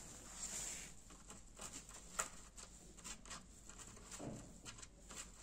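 Faint handling noises of a foam-core glider wing on a workbench: scattered light taps and clicks, a sharper click about two seconds in and a soft knock a little after four seconds.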